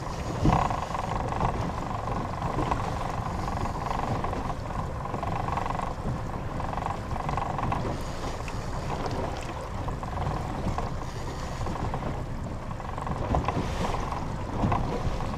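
Steady wind and boat noise on a small fishing boat, a low rumble with a fainter hum around it and no distinct events.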